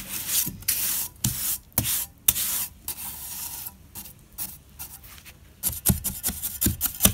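Steel brick trowel scraping through and working a pile of freshly mixed lime mortar on a hard surface: a series of irregular gritty scrapes, with a few sharper clicks near the end.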